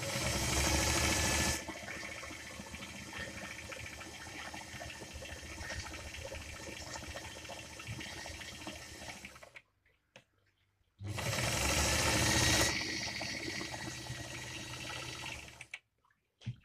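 Singer 319K zigzag sewing machine running and stitching, in two runs with a pause of about a second and a half near the middle. Each run is louder for its first second or so, then settles to a steady run.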